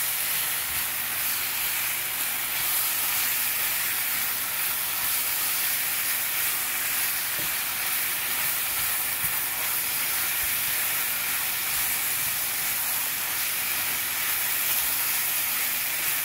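Thin-sliced marinated sirloin sizzling steadily in an oiled nonstick frying pan on medium-high heat. A spatula stirs and turns the meat now and then, with soft scrapes and knocks against the pan.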